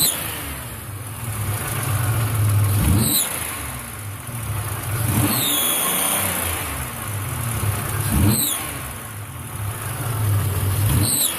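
Car engine revved up and let drop back over and over, about every three seconds, with exhaust gas leaking out of a small crack in the exhaust manifold. The owner puts the leak down to a plugged catalytic converter.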